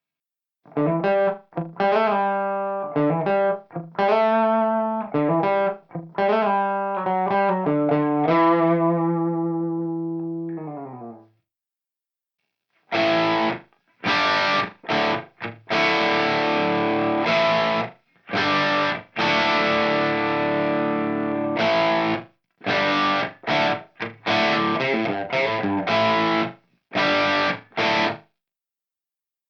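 Electric guitar played through amp-simulator plugins. First come picked chords in a cleaner tone, ending on a held chord that rings out and fades about 11 seconds in. After a brief pause, heavily distorted rhythm chords play in tight stop-start blocks with sudden cut-offs.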